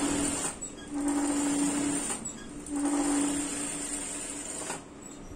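Electric sewing machine stitching a seam in short runs with brief pauses, the last run stopping shortly before the end.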